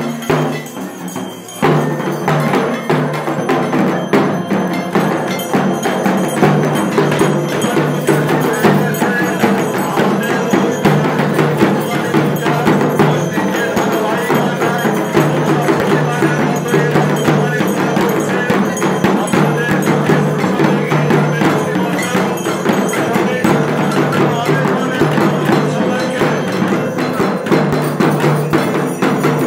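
Ritual percussion music for a Durga Puja rite: fast, continuous clanging of bell-like metal percussion with drumming over a steady low drone, picking up about a second and a half in.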